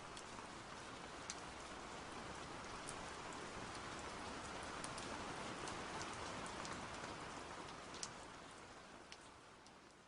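Steady rain falling, with scattered sharp ticks of single drops; it swells gently toward the middle and fades out near the end.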